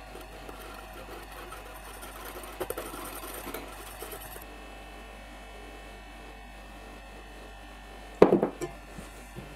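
Small wire whisk beating batter and melted butter in a glass bowl: a quick, faint ticking and swishing for about four seconds. Near the end, a spatula knocks against a stainless steel mixing bowl, the loudest sound, with a few lighter knocks after it.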